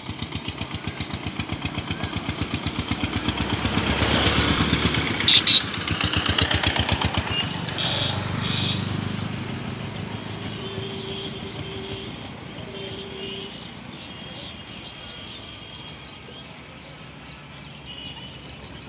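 A small engine passing close by: a fast, even pulsing beat that grows louder over the first five or six seconds, then slowly fades away. Two short beeps sound around the middle.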